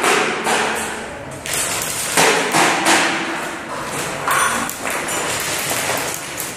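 A series of sharp knocks and thuds at irregular intervals, each with a short echoing tail, in a large bare concrete room.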